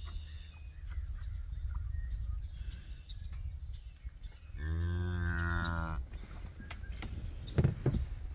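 A cow moos once, a single low moo lasting about a second and a half near the middle. A couple of dull thumps come near the end.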